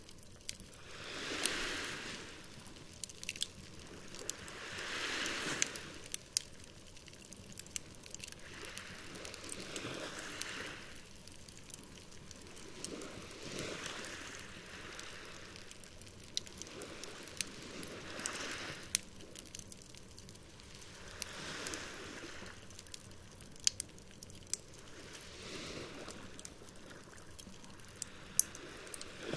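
Campfire crackling with sharp, scattered pops, over small waves washing onto the shore about every four seconds.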